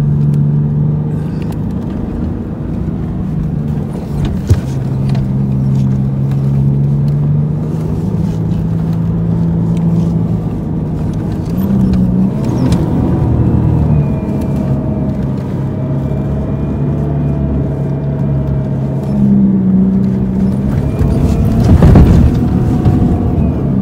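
An off-road vehicle's engine heard from inside the cabin while dune bashing. The engine note holds steady, then shifts up and down with the throttle, and there is a louder burst of noise near the end.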